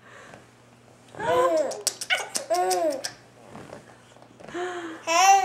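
Baby laughing and squealing in two bouts of high-pitched, up-and-down vocal sounds, starting about a second in and again near the end.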